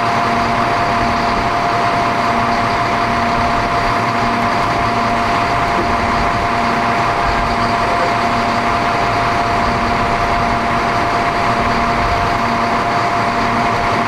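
A large bus's engine idling steadily, a constant drone with a steady hum and a faint regular low pulse.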